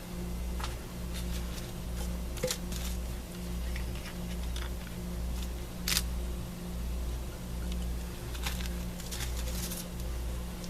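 Scattered small clicks, taps and rustles of craft supplies being handled, the sharpest tap about halfway through, over a steady low hum that pulses about once a second.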